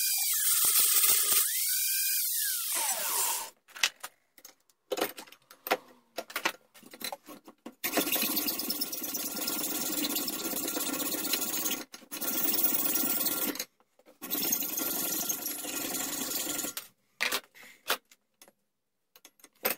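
Angle grinder grinding a steel part clamped in a vise, its pitch dipping under load, then switched off and winding down about three seconds in. Clinks and knocks of metal being handled follow, then three stretches of steady noise lasting a few seconds each.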